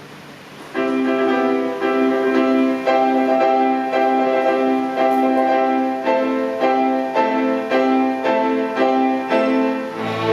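Concert pianos playing a steady pulse of repeated struck chords. The chords begin about a second in, after a fading held note, and strings join near the end.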